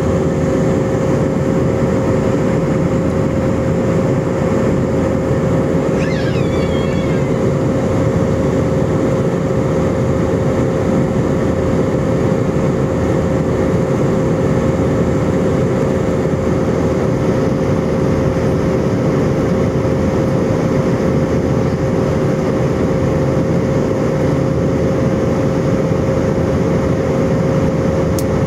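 Cabin noise of an Airbus airliner in flight, heard from a window seat over the wing. A steady roar of jet engines and rushing air runs throughout, with a low, even hum of two tones.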